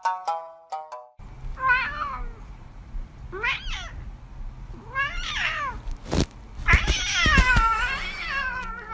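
A cat meowing four times, the last call long and drawn out near the end. There are a few knocks shortly before and during that last call.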